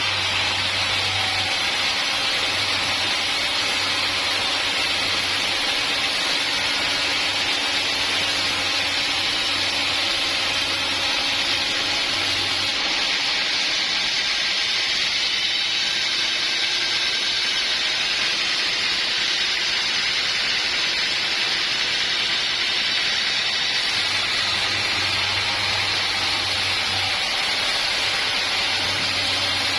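Sawmill saw running and cutting through a log: a steady, even rushing noise. A low hum under it drops out about halfway and comes back for a few seconds later on.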